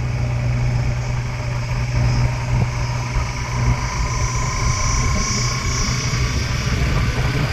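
Steady engine hum and road noise of a moving vehicle, heard from on board as it drives along a paved road. A faint high tone comes in briefly in the middle.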